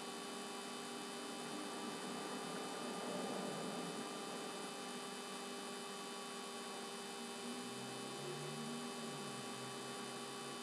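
Steady electrical hum with hiss, several constant tones held throughout: low-level recording noise.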